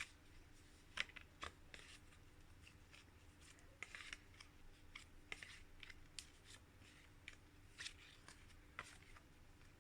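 Faint, scattered clicks and brushing of paper flashcards being handled and shuffled, with low room tone between them.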